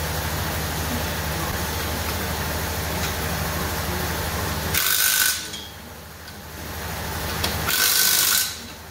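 A Ryobi cordless driver run in two short bursts, about five and eight seconds in, each under a second, driving the bolts that fasten the pillow-block bearings to the steel frame. A steady low hum runs underneath.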